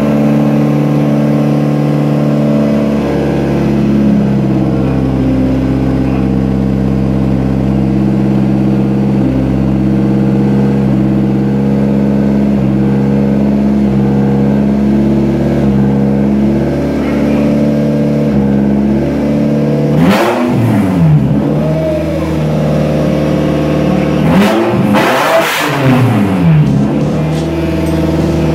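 Toyota 3S-GE inline-four engine in a BMW E36 idling steadily, then revved twice, about 20 seconds in and again around 25 seconds, each rev rising and falling back to idle.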